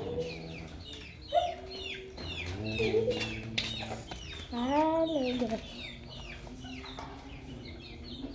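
Bantam chickens clucking and calling, with one longer call that rises and falls about five seconds in, over a steady run of short high chirps.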